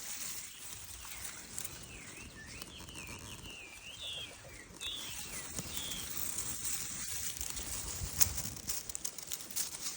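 A songbird sings a warbling phrase of quick rising and falling whistled notes for a few seconds. Later come scattered clicks and rustling.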